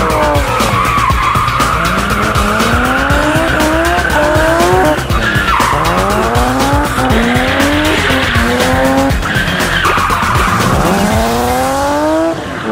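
BMW E30 drift car's S50 straight-six revving up again and again in rising sweeps, with tyres squealing as the car slides sideways.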